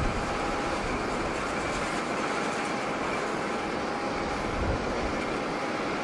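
Airliner's jet engines at climb power just after takeoff, a steady rushing roar with a thin steady whine above it. Gusts of wind buffet the microphone.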